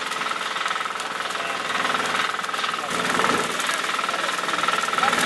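African lovegrass burning fiercely in a live grass fire: a steady rushing noise of flame packed with rapid, continuous crackling. A steady high tone runs underneath.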